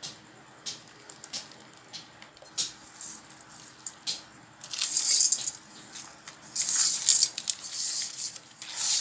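Hand kneading raw chicken pieces with a wet green ginger-garlic-coriander paste and spice powders in a steel pot: wet squishing and squelching in bursts from about five seconds in, after a few light clicks and taps.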